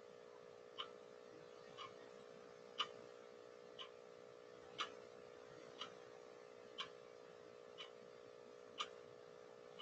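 A ticking clock, faint, about one tick a second with the ticks alternating stronger and weaker, over a steady faint electrical hum.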